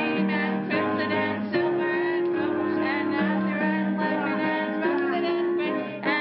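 Music with plucked guitar and a singing voice.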